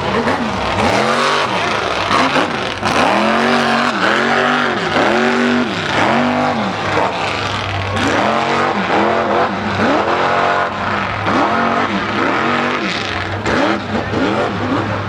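Mud truck's engine revving hard while it bogs through a mud pit, its pitch surging up and falling back over and over, one to two times a second.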